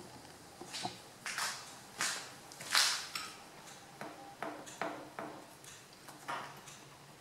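Kubota B7001 front wheel being rocked back and forth by hand while jacked up, giving about ten uneven knocks and clunks, the loudest near the middle. It is a check of the front wheel bearing: the bearing is sound and the movement comes from play in the steering knuckle.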